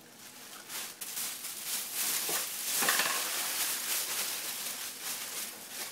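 Rustling and crackling of a thick knit sweater dress being handled and turned over close to the microphone, in uneven bursts that swell around the middle.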